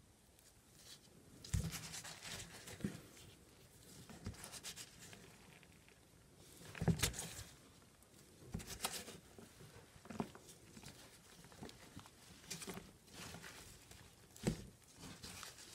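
Gloved hand rummaging through and fluffing the shredded paper and cardboard bedding of a plastic worm bin to aerate it: irregular rustling and crinkling, with a few louder crackling bursts and soft thuds, the loudest about seven seconds in.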